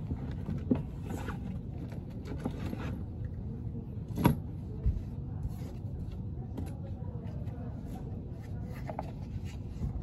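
Handling sounds of an iPad in its case being taken out of a bag: rustling and light clicks, with a sharper knock about four seconds in, over a steady low background hum.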